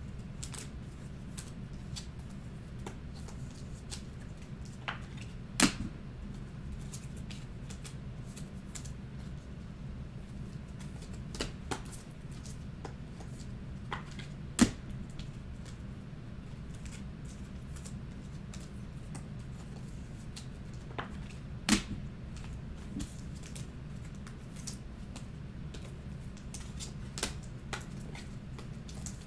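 Light scattered clicks and taps of Clearly Donruss basketball cards, clear acetate, and their packs being handled and set down on a table, with a few sharper snaps about 6, 15 and 22 seconds in. A steady low hum runs underneath.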